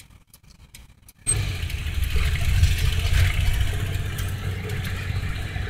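Car engine and road noise heard from inside the cabin as the car pulls away from a stop. After a near-quiet first second with a few faint clicks, a steady low rumble with a rushing hiss comes in suddenly and holds.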